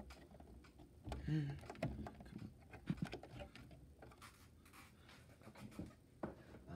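LEGO bricks being worked loose by hand from a model: scattered small plastic clicks and scrapes as a stubborn section is pried and pulled off, with a sharper click about three seconds in.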